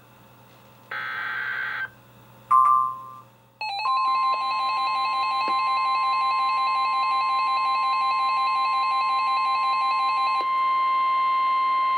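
NOAA Weather Radio warning alarm tone, one steady high tone lasting about nine seconds, sounding ahead of a new severe thunderstorm warning. For most of its length a weather radio receiver's own alert beeps pulse over it, and they stop about two seconds before the end. Just before the tone come a short burst of noise and a brief two-tone beep.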